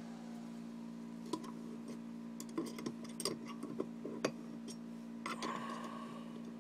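Light metal clicks and taps, irregular and spread across the few seconds, as an armorer's piston-nut tool and its retaining pin are fitted onto and worked on an M1 carbine's gas piston nut, with a brief scrape near the end. A steady low hum runs underneath.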